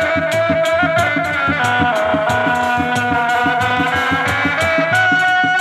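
Sundanese dog-dog drums beaten by hand in a fast, steady interlocking beat, with a high sustained melody held over the drums.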